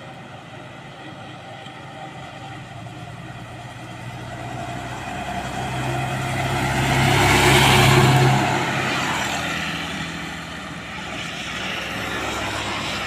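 A truck driving past: its engine hum and tyre noise swell to a peak about eight seconds in, then fade as it moves away.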